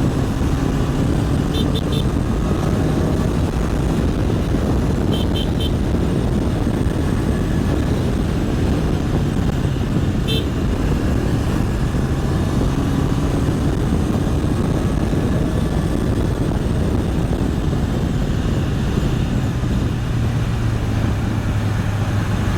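Honda CBR 650R inline-four engine running steadily while riding, heard through a rush of wind and road noise. Three times, a quick burst of short high-pitched beeps cuts through.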